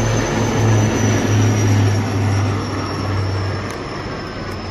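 Formation of military helicopters flying overhead: a steady low drone of rotors and turbine engines under a broad roar, with a faint high whine that slowly falls in pitch. It eases off a little in the last second or so.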